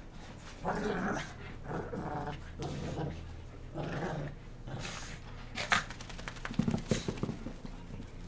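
Two Shih Tzus play-fighting, growling in short bursts, with a sharp bark a little past halfway and then a quick run of scuffling knocks.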